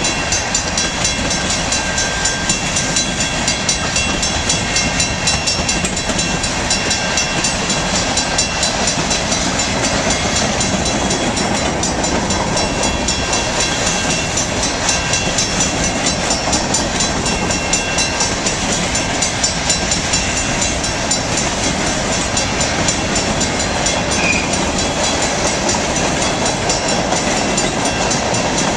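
Freight train of covered hopper cars rolling past a grade crossing at speed: a steady rumble and clatter of steel wheels on the rails.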